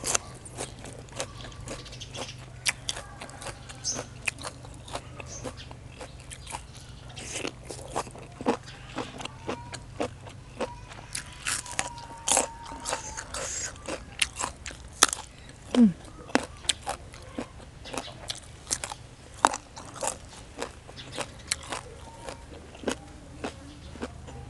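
Close-miked chewing of a mouthful of crunchy beef tripe salad, with many sharp, irregular crunches.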